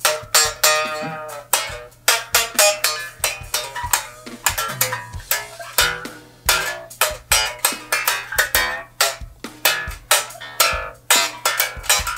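Ibanez EHB1506MS headless six-string bass played slap style: a fast run of sharp, percussive string snaps and pops mixed with plucked notes.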